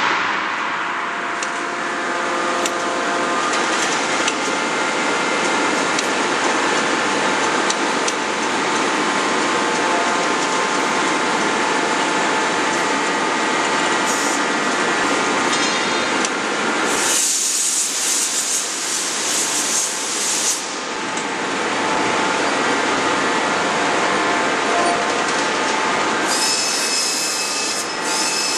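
Steady running noise of hydraulic closed-die forging hammer and forging manipulator machinery between blows, with no hammer strike. A hiss rises over it for about three seconds midway, and a high steady whine comes in near the end.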